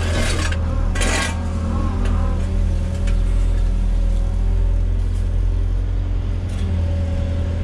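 Volvo EWR150E wheeled excavator's diesel engine running steadily with a deep drone, with two short noisy bursts about the start and a second in.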